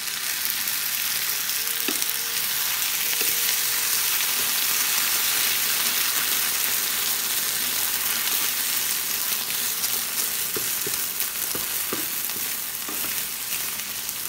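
Bell peppers and tomato sauce sizzling steadily in a non-stick frying pan while a wooden spatula stirs them, with a few light knocks of the spatula against the pan, mostly in the second half.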